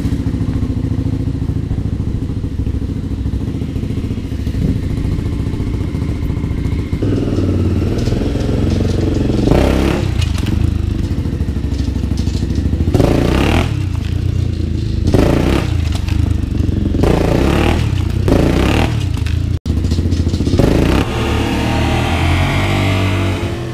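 1984 Honda XR350R dirt bike's single-cylinder four-stroke engine running steadily, then revved in about six short blips over the second half, the last as the bike lifts into a wheelie.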